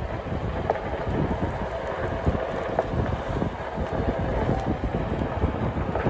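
Wind buffeting the microphone of a moving camera: a gusty, fluttering low rumble, with a faint steady tone under it.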